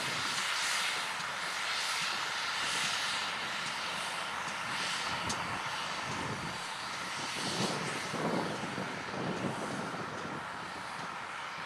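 GWR prairie tank steam locomotive working a train of coaches past, its exhaust beating in soft chuffs about a second apart over a steady rumble, with a few stronger chuffs near the end.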